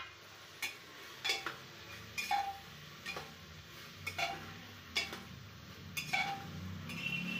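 Steel ladle clinking and scraping against the inside of an aluminium pressure cooker while stirring vegetables, about one clink a second, each with a short metallic ring.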